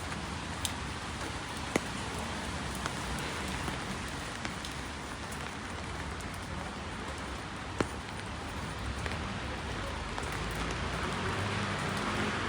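Steady rain falling, an even hiss with a few sharp drop ticks here and there; the hiss swells a little near the end.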